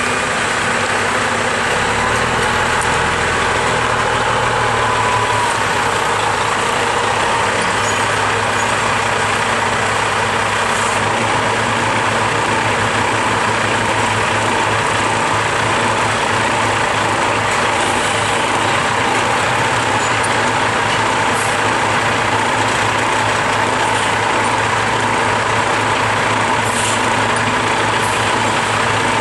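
Heavy diesel log truck engine running steadily at idle, a continuous unbroken drone.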